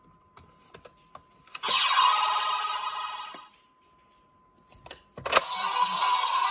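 Kamen Rider Gotchard toy transformation belt: a few light plastic clicks as its buttons are pressed, then a loud electronic sound effect for about two seconds. After a card is passed over it, two sharp clicks near the end set off the belt's electronic sound effects and music.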